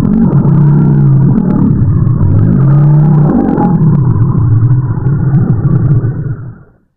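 Tyrannosaurus rex sound effect: a loud, deep, pitched rumbling call that swells and bends in long phrases, then fades out near the end.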